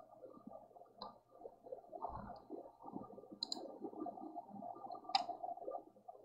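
Faint room noise with a few scattered sharp clicks and one soft low thump about two seconds in; the loudest click comes near five seconds in.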